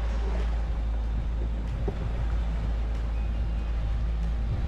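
Twin Suzuki 115 outboard motors running steadily with the boat under way at speed, under the rush of the wake and heavy wind buffeting the microphone.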